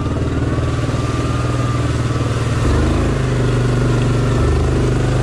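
ATV engine running as the quad rides slowly along a muddy trail, with the throttle opening up a little about two and a half seconds in.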